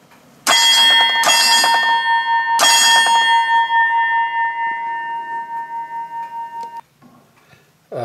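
1920s Chelsea automatic ship's bell struck three times by its electric solenoid striker, a pair of strokes and then a single one: three bells, the signal for half past five in ship's time. The loud, clear ring hangs on after the last stroke and is cut off abruptly about seven seconds in.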